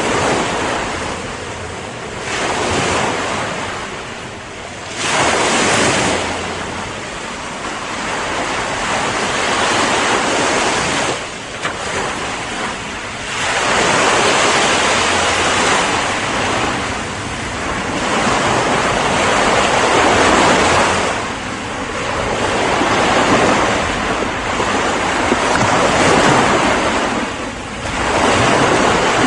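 Ocean waves breaking and washing on a shore, the surf swelling and falling back every few seconds, with wind.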